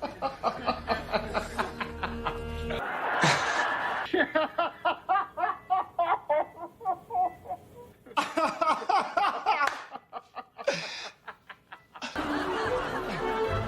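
People laughing in quick repeated ha-ha pulses, with short breaks, over background music that drops out after about three seconds and comes back near the end. Two short, sharp noisy bursts, one about three seconds in and one about eleven seconds in, interrupt the laughter.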